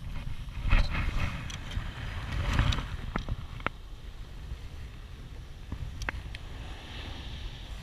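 Wind buffeting the camera microphone as a low rumble, with rustling gusts in the first few seconds. A few sharp clicks and taps come from handling a fish and a plastic measuring ruler on the concrete.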